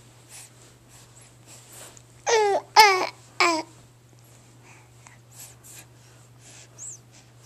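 A baby babbling: three short cooing sounds in quick succession, starting a little over two seconds in.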